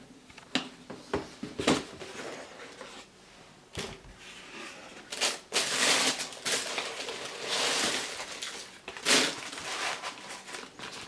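Paper rustling and crinkling, with light knocks and clicks from handling, as a pair of sneakers is unwrapped and lifted out of its shoebox.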